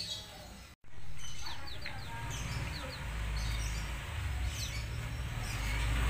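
Caged black-naped oriole (kepodang) giving a few short, high, downward-sliding chirps over a steady low rumble. The sound cuts out briefly about a second in.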